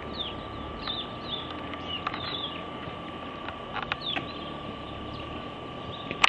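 Birds chirping in short, falling calls over a steady faint whine, with a sharp click near the end.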